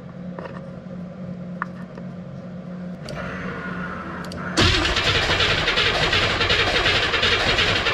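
A low steady hum, then a little over halfway in the starter motor of a 1957 Chevy engine begins cranking it over in a fast, even churn. The engine doesn't fire: there is no spark at the test plug from the newly fitted Pertronix electronic ignition.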